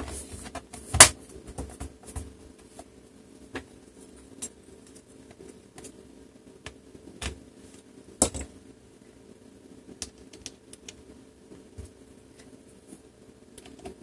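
Plastic bottom cover of an HP Pavilion 14 laptop being pressed down around its edges, its clips snapping into place, with a sharp click about a second in and scattered lighter clicks and taps. A second sharp click comes just after eight seconds as tools are handled on the desk.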